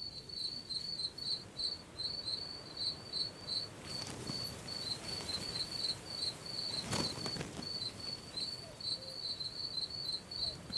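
Crickets chirping steadily in short high pulses, several a second, over a faint low hush. A soft swish comes through about four seconds in and again, more clearly, about seven seconds in.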